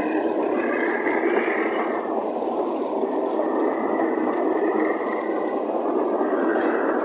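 Passenger train coaches rolling past close by: a steady rumble of steel wheels on the rails, with a few faint clicks and clanks.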